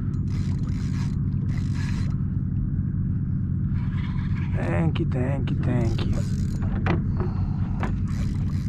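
Spinning reel cranking, its drag clicking, as a hooked redfish pulls against the rod. A steady low hum runs underneath, and a brief voice comes in about halfway through.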